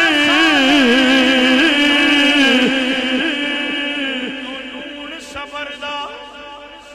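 A solo voice sings a long held note of a Punjabi devotional kalam, ornamented with wavering turns. It stays loud for about three seconds, then fades away near the end.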